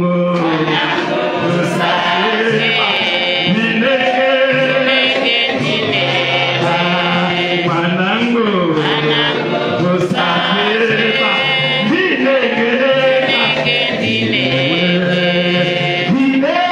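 A man's voice singing a slow, chant-like church song into a microphone, amplified through the PA, with held notes that glide up and down.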